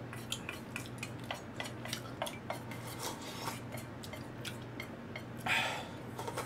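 Chopsticks clicking and tapping against thin aluminium ramen pots, in many light, scattered taps. About five and a half seconds in comes the loudest sound, a short slurp of broth drunk straight from the small aluminium bowl.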